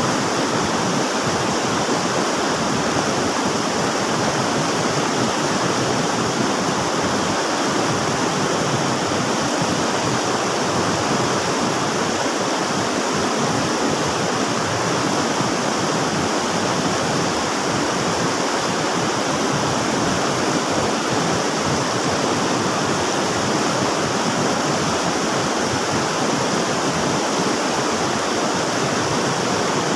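River water rushing steadily, an even, unbroken flowing sound with no changes.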